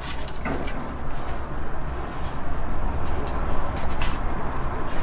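Handling noise: small knocks and rubs as a plastic radio unit is turned over in the hand above a cardboard box, over a steady low hum.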